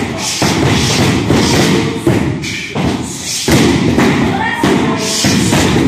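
Repeated thuds of punches and kicks landing on handheld kick shields during karate pad training, with voices in the background.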